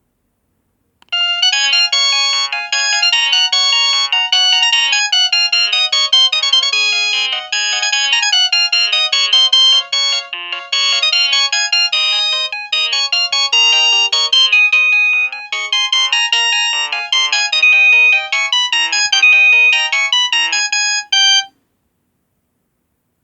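A ZTE WP650 phone ringtone: an electronic tune of many short, quick notes that starts about a second in, plays for roughly twenty seconds and cuts off suddenly near the end.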